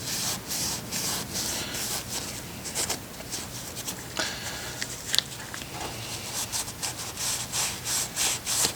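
Quick, irregular rubbing strokes of a Corvair transaxle part being scrubbed clean by hand, with one sharp click about halfway through.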